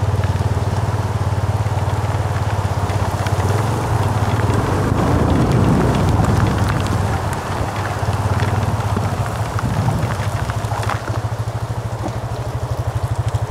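Yamaha FZ25's single-cylinder engine running at low road speed, a steady low beat of exhaust pulses that swells a little around the middle. Light rain patters in the background.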